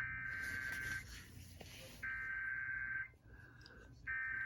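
Emergency Alert System SAME header on NOAA Weather Radio: three bursts of high, buzzy data tones, each about a second long, with about a second between them. The bursts carry the coded event type and affected areas that open a new warning.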